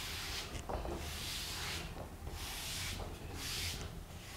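Blackboard duster rubbing chalk off a chalkboard in repeated brushing strokes, about one a second.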